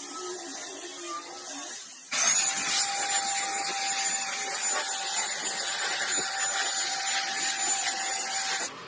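A handheld electric power tool running at steady speed with a high whine, starting abruptly about two seconds in and cutting off near the end; a quieter motor hum comes before it.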